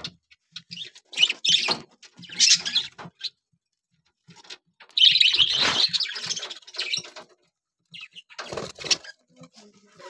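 Budgerigars chirping in short bursts, with a longer, louder flurry of chirping and wing flutter about five seconds in.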